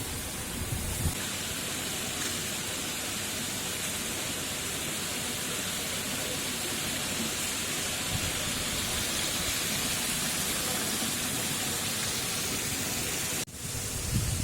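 Steady, even rushing noise with no distinct events, cutting off suddenly near the end and then resuming.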